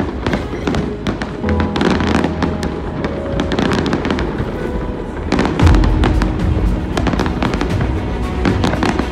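Aerial fireworks going off: rapid crackling and popping with deep booms, the heaviest boom about halfway through, over music playing in the background.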